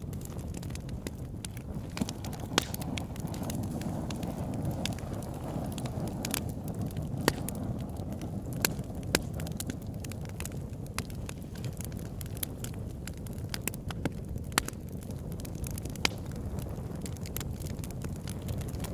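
Campfire burning: a steady low rush of the flames with frequent sharp crackles and pops from the burning wood, irregularly spaced, about half a dozen of them louder than the rest.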